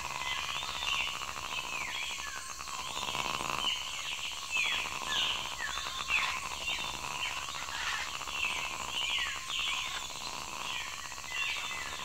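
Forest ambience: many birds calling in quick downward-sweeping chirps, over a steady high drone and a continuous pulsing trill of insects and frogs.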